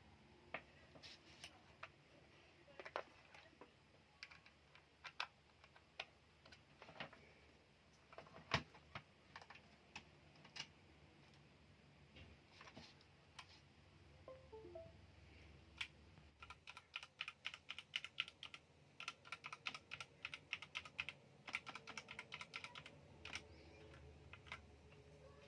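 Typing on a mechanical keyboard: scattered single keystrokes at first, then a fast, steady run of key clicks from about two-thirds of the way in.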